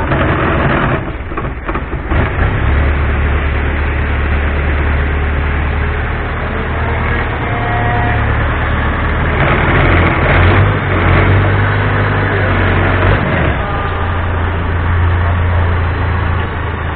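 Longtail boat engine running with a steady low drone, its pitch shifting a couple of times as the throttle changes.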